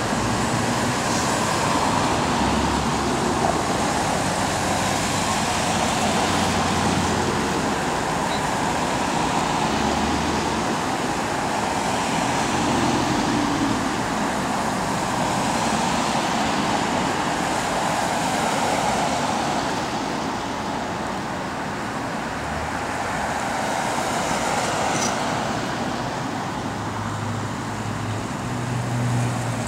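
Police cars driving past one after another: a steady wash of engine and tyre noise that swells and eases gently as each car goes by.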